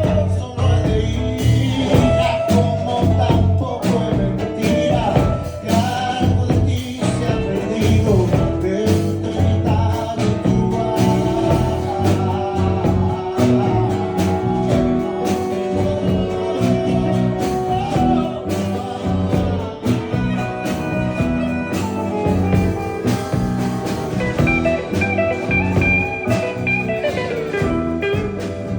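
Jam-session ensemble music in a bluesy style, with a long held note partway through.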